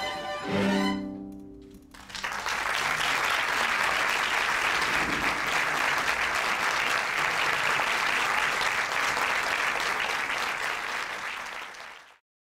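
A string quartet's chord rings out and fades, then the audience applauds steadily for about ten seconds before the sound cuts off suddenly near the end.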